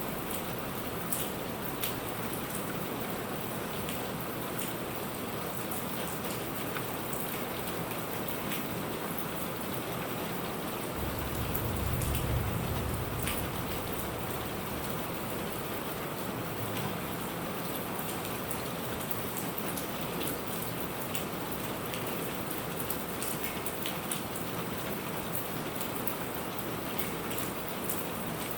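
Steady heavy rain with individual drops ticking sharply on a surface. About eleven seconds in, a low rumble of distant thunder swells for a couple of seconds and fades.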